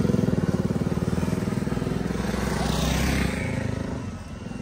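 Motorcycle engine running past close by with a fast, even chugging, fading away as it moves off. A brief rushing noise about three seconds in.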